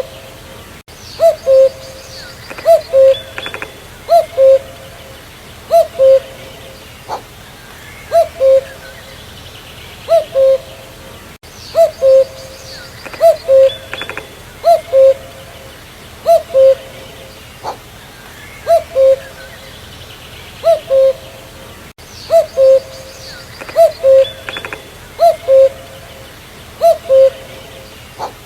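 Common cuckoo calling its two-note "cu-coo" over and over, a higher note dropping to a lower one, about every one and a half seconds.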